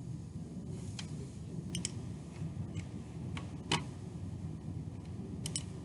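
Scattered computer mouse clicks: several single clicks and a couple of quick double clicks, over a low steady hum.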